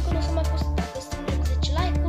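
Background music with a steady beat and heavy bass, and a sung or rapped vocal line over it.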